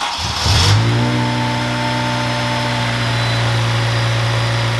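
Honda K20A four-cylinder engine of a 2003 Civic Type R (EP3) catching on the starter: a moment of cranking, revs rising within the first second, then settling into a steady idle. It is starting and running smoothly.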